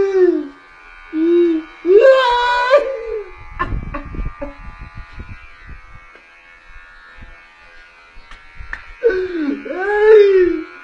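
A voice calling out in long sliding tones that rise and fall, several times near the start and again near the end, with a quieter stretch of rustling and handling noise in between.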